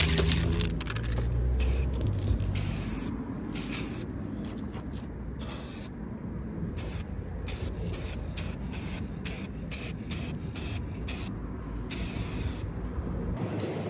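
Aerosol spray can of base coat paint hissing in many short bursts, with a few longer passes, as thin coats are sprayed onto a car body panel. A low rumble runs underneath, strongest in the first couple of seconds.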